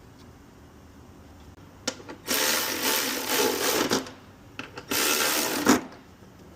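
Cordless power tool running bolts in on the engine, in two bursts of whirring: one of nearly two seconds, then a shorter one about a second later, with a few metallic clicks before and between them.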